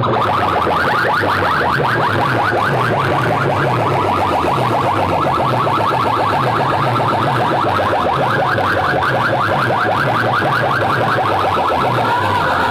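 Banks of metal horn loudspeakers playing a loud, rapidly repeating warbling electronic tone like a car alarm, over a low pulsing beat.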